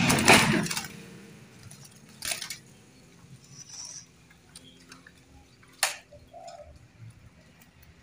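A loud rustling burst in the first second, then a short knock and, near six seconds, a single sharp click, with faint zebra dove sounds in between.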